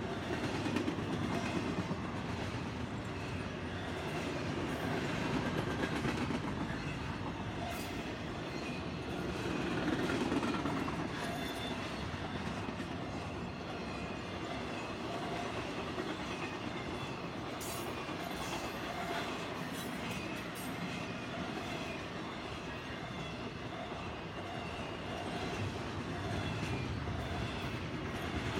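Double-stack intermodal freight train's container-laden well cars rolling past: a steady rumble and clatter of steel wheels on the rails, a little louder about ten seconds in.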